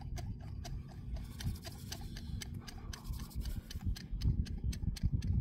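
Rapid, regular ticking, about four to five clicks a second, over a low gusting rumble of wind on the microphone.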